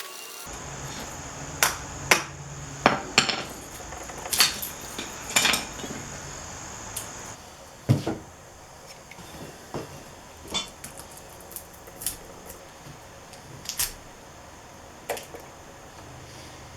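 Metal clanks and knocks from tools and scrap being handled: about a dozen sharp, irregularly spaced hits over a steady low hum.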